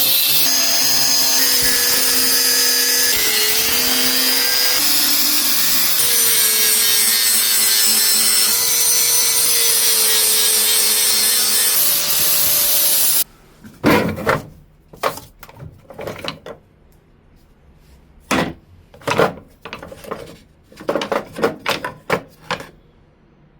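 A power tool runs continuously, its pitch wavering as the load changes, then cuts off abruptly about 13 seconds in. A series of short, irregular scraping strokes follows.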